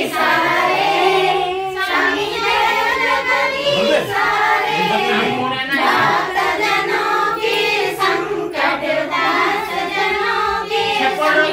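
A group of women singing together in unison, an aarti song sung while the lamp plate is waved.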